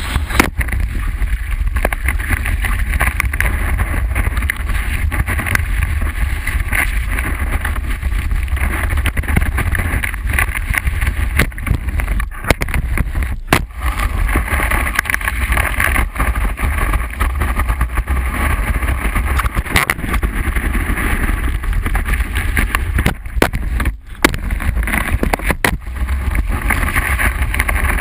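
Wind buffeting a GoPro mounted on a wakeboard, with water rushing and spraying under the board as it is towed across the lake: a loud, steady rush with a deep rumble, broken by a few brief dips.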